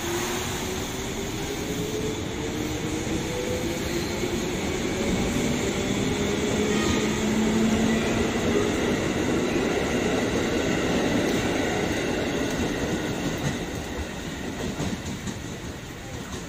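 KRL Commuter Line electric train pulling away, its traction motors whining steadily upward in pitch as it accelerates, over the rumble of its wheels on the rails. The noise is loudest about eight seconds in and eases off near the end.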